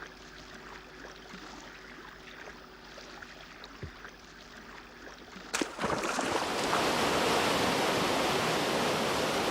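Faint outdoor hiss with scattered small ticks, then a little past halfway an abrupt change to loud, steady rushing river water.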